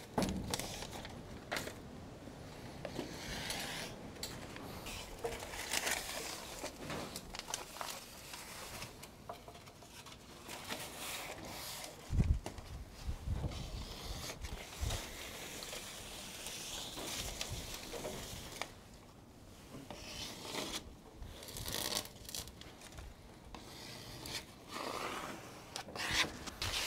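Joist flashing tape being laid on wooden deck joists: the tape is unrolled, peeled from its paper backing and rubbed and scraped down onto the wood by hand. A few dull thumps come around the middle.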